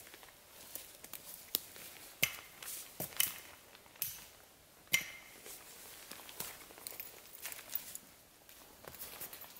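Footsteps crunching through thin snow and dry brush on a forest floor, with a string of sharp snaps and knocks, the loudest about two and five seconds in.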